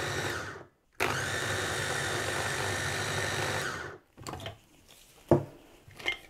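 Electric food chopper's motor running on a bowlful of fresh fireweed leaves, giving them a light first chop: it runs, stops briefly under a second in, then runs for about three seconds more and stops. A few light clicks and a sharper knock follow as the machine is handled.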